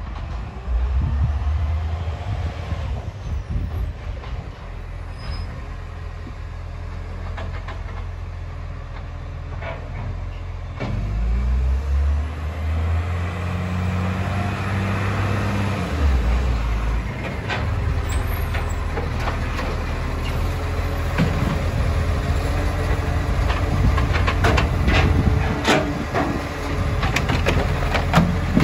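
Side-loading garbage truck's diesel engine running as the truck comes up the street, growing louder about halfway through. In the second half come repeated clunks and rattles as its robotic arm grabs and lifts a wheelie bin, busiest near the end.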